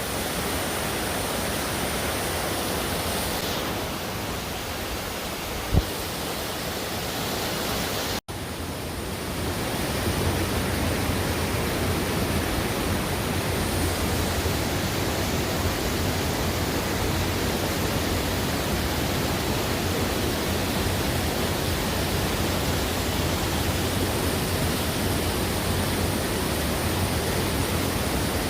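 Kanba Falls, a waterfall, pouring in a steady rush of falling water, with a brief low thump about six seconds in and a momentary break just after eight seconds, where the recording cuts.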